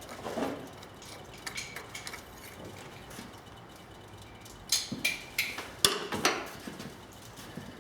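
Metal hand tools clicking and clinking in short scattered knocks, a few with a brief metallic ring and the busiest stretch a little past the middle, while a spark plug is being removed to set up a compression test on the engine's number 2 cylinder.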